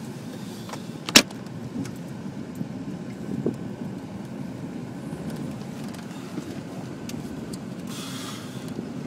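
Jeep's engine running low and steady, heard from inside the cabin as it crawls over rough ground. A sharp knock about a second in, a smaller click in the middle, and a short rattle near the end.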